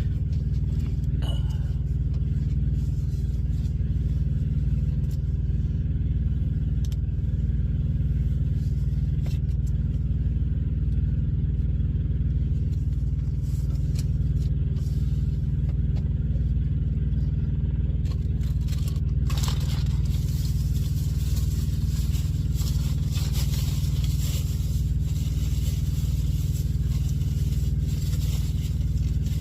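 Steady low rumble of an idling engine. A brighter hiss joins it about two-thirds of the way through.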